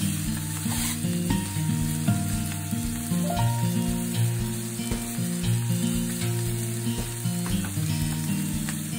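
Beef round steak sizzling in hot oil in a frying pan, a steady frying hiss, over soft background music with held notes.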